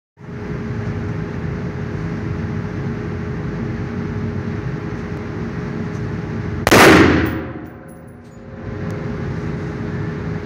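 A single shot from an RF-15 AR-15-style rifle about two-thirds of the way in, loud and sharp with a short ringing tail, over a steady background hum.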